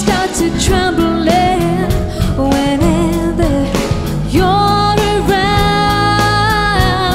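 Background song with a singing voice over instrumental backing; about halfway through the voice holds one long wavering note.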